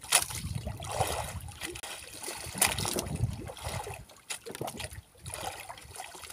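Sea water slapping and trickling against the hull of a small wooden boat rocking on the swell, with a few sharp knocks scattered through.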